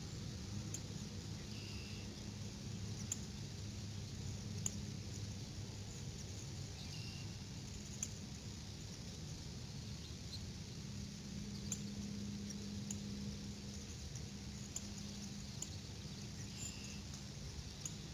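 Quiet outdoor ambience from a nest-camera microphone: a steady low hum with scattered faint clicks, and a few short high chirps, about a second and a half in, around seven seconds and again near the end.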